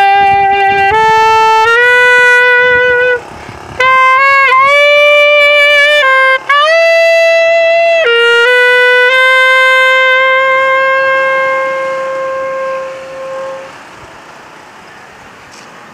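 Saxophone playing a slow melody of sustained notes, with a short break for breath about three seconds in, ending on a long held note that fades out about two seconds before the end. Faint background noise remains after the note dies away.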